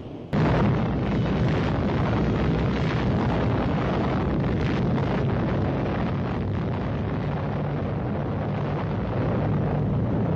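Rumble of a huge explosion. It starts suddenly about a third of a second in, then runs on as a steady, heavy, deep rumble with crackle.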